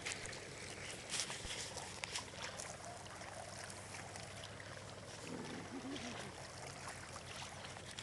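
Floodwater sloshing and trickling, with scattered knocks and rustles from a handheld camera being swung about, the sharpest about a second and two seconds in.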